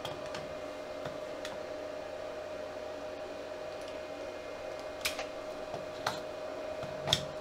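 Short plastic clicks, three of them about a second apart near the end, as a plug-in relay is worked loose and pulled out of its socket base. A steady faint hum runs underneath.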